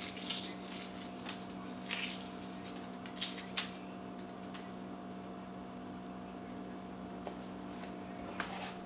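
Shell of a hard-boiled egg being cracked and peeled by hand: a few short, faint crackles scattered through, over a steady low hum.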